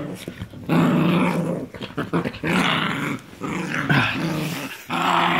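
Two dogs, an English Mastiff and a Morkie, growling in rough play as they wrestle. The growls come in about five long bouts with short breaks between them.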